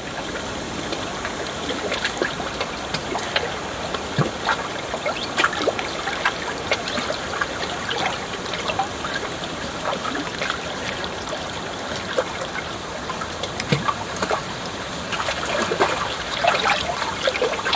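River water running and babbling: a steady rush with many small splashes and droplet ticks throughout, a little busier near the end.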